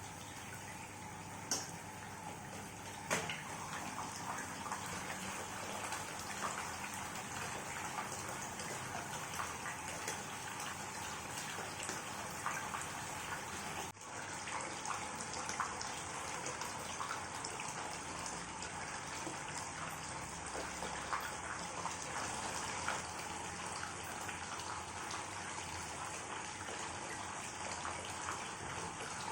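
Steady running, splashing water, with a couple of brief knocks in the first few seconds.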